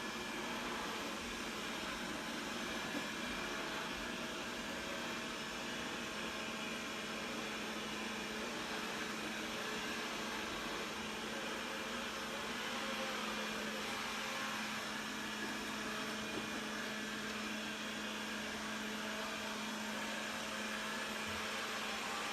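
Steady hiss with a low, even hum, the background noise of a running household appliance.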